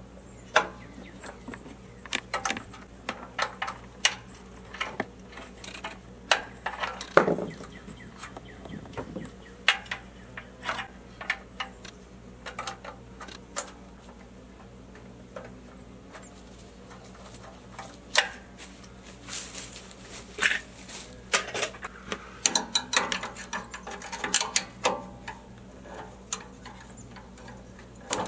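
Irregular clicks, taps and clanks of hand tools and loose metal parts being worked on a small Tecumseh engine during disassembly, busiest in a flurry of knocks past the middle.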